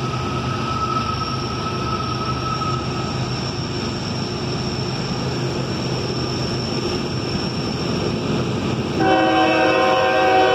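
CSX diesel freight locomotive approaching with a steady rumble. About nine seconds in, its air horn sounds a loud chord of several notes and holds it.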